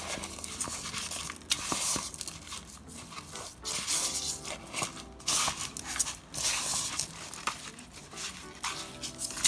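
Hands rubbing a brown sugar and salt dry rub into raw chicken thighs and a drumstick in a stainless steel bowl: meat and grains work against the bowl in an irregular rustle, with a few sharp taps.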